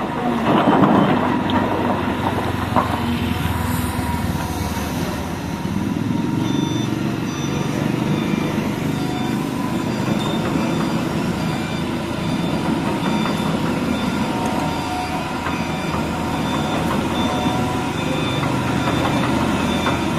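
Cat 320 hydraulic excavator's diesel engine running steadily under load while it digs in a riverbed, with a few knocks in the first few seconds.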